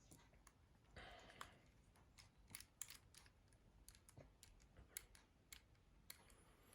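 Faint scattered clicks and a brief soft rustle of small plastic and metal mobile-phone parts being handled and fitted, over near silence.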